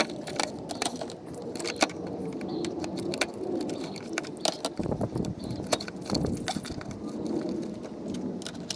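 Scattered light clicks and knocks of plastic airbox parts being handled and pushed into place around a rubber grommet in a car's engine bay.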